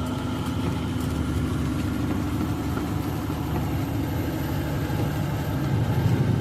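Semi-truck's diesel engine running steadily, heard from inside the cab, a low drone with a faint steady hum that fades about halfway through.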